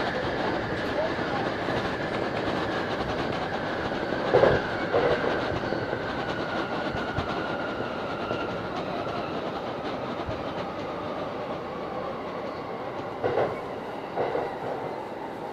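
JR Saikyo Line electric commuter train braking into a station, heard from inside the front car: the motor whine falls steadily in pitch as it slows, over the rumble of the wheels. Pairs of wheel clacks over rail joints come about four seconds in and again near the end.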